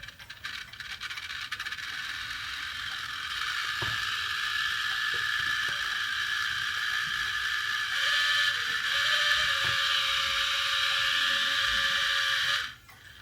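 Cheap quartz wall-clock movement overdriven from a 555 oscillator: its stepper motor and gear train run at many times normal speed, with rapid ticking that quickly merges into a steady whir. The sound changes about eight seconds in and cuts off suddenly near the end.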